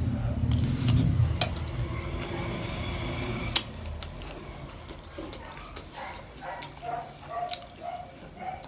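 Close-miked eating sounds: chewing and crunching spicy street snacks, with sharp crunches and clicks scattered through and a run of short, quick chewing sounds in the second half.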